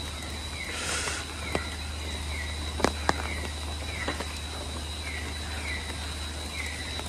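Tropical rainforest night chorus: a steady high insect drone with a small creature's short falling chirp repeated about once or twice a second, and a few sharp clicks.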